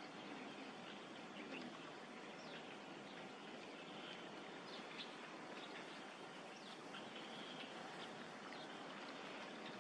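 Steady outdoor background hiss with faint, scattered chirps of small birds.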